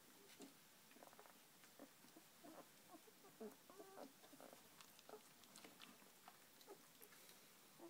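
Young puppies making faint little squeaks and grunts, with a few soft clicks, the clearest squeaks about three to four seconds in.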